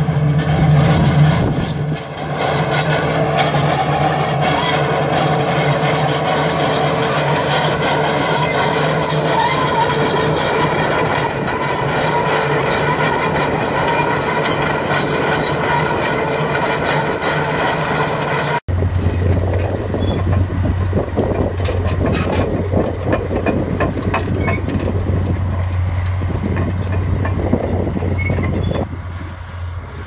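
Komatsu crawler dozer's diesel engine running steadily under load as it drags a deep plow through the soil. About two-thirds of the way through, the sound cuts abruptly to another large crawler dozer working, with a lower engine note.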